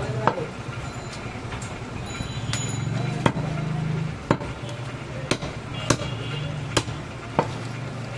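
Heavy butcher's knife chopping pieces of mutton on a wooden log chopping block: a series of sharp chops, roughly one a second, some harder than others.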